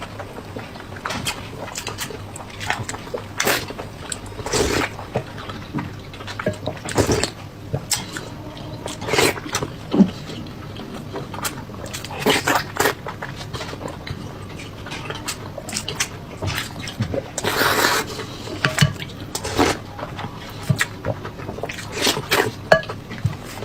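Close-miked eating: a person chewing and biting food with wet mouth sounds, in irregular short bursts every second or so and one longer burst about 17 seconds in.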